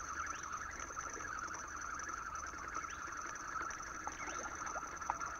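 Steady insect chorus at two pitches, with a few short rising bird chirps and a single sharp click about five seconds in.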